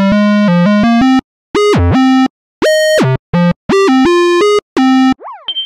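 Phase Monkey phase-distortion software synthesizer playing its 'Suhweet Square' preset: a bright, buzzy square-wave tone in short sequenced notes that step up and down in pitch, with brief gaps between phrases and one note that dives sharply in pitch about two seconds in. Near the end a different patch takes over with quick falling pitch glides.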